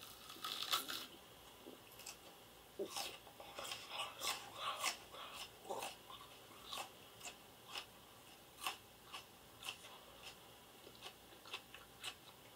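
A person biting into a raw onion and chewing it with crunches, loudest within the first second, then a steady run of irregular crunches that thin out to about one a second toward the end.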